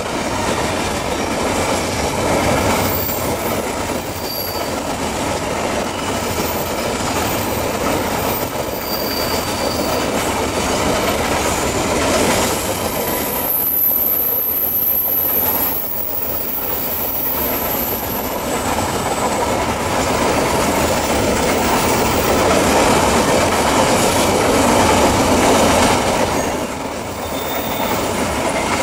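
A long coal train's wagons rolling past on a curve, with a steady wheel rumble and clatter. High wheel squeals come and go, the strongest about halfway through.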